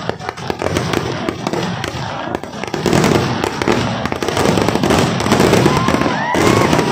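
Fireworks barrage: a dense, continuous crackle of rapid firecracker bangs, getting louder about three seconds in.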